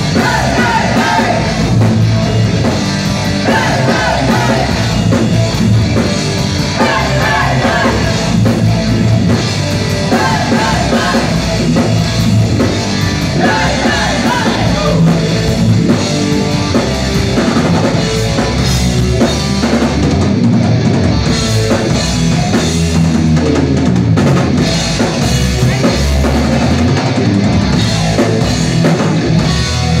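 Live rock band playing loud: drum kit, electric guitars and bass, with a singer's voice over roughly the first half, then an instrumental stretch without vocals.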